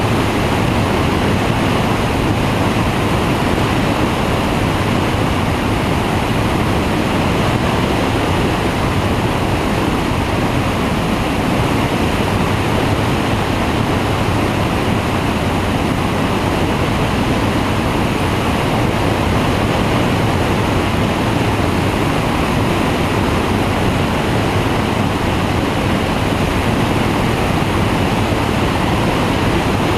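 Steady rushing of airflow over the microphone of a camera mounted on a flexwing microlight's wing in flight, with the trike's engine and pusher propeller running underneath, unchanging throughout.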